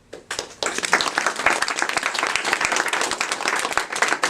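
Audience applauding: a few claps right at the start, quickly filling in to steady clapping from many hands.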